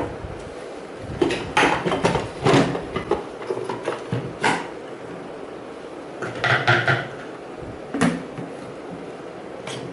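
Hard plastic parts of a rotating dry-food dispenser knocking and clicking as it is handled and fitted together: a cluster of knocks and clatters between about one and three seconds in, a single knock around four and a half seconds, another cluster around six and a half seconds, and one more knock about eight seconds in.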